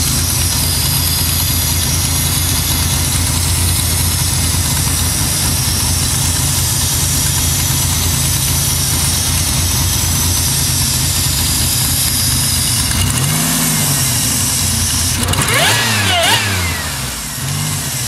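The 1997 Pontiac Grand Prix GTP's supercharged 3800 V6, built with an aggressive XP camshaft, idling steadily with a cam lope. Near the end it is blipped twice by hand at the throttle, and the second rev goes higher and louder before dropping back to idle.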